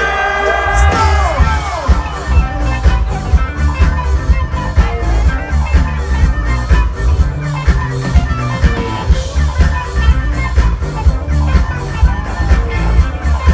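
Live rock band playing: a long held note slides down and ends about a second in, then the band drives on with a steady beat.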